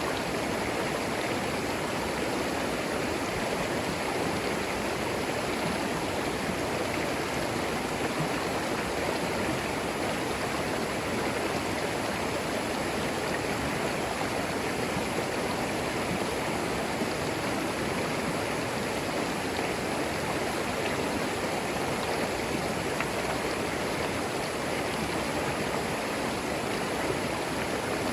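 A clear forest creek flowing steadily over stones: an even, continuous rush of running water.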